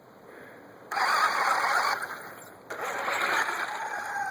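Toy RC truck's battery-powered electric motor and gears running in two spurts of throttle, the first about a second in and the second just under three seconds in.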